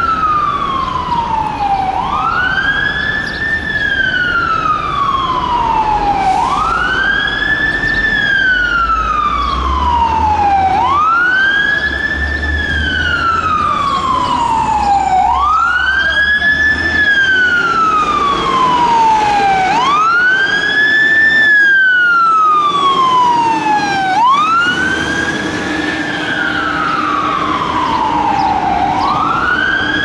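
Boston fire engine's siren on a wail, cycling about every four seconds with a quick rise in pitch and a long slow fall, over the low rumble of the truck and traffic.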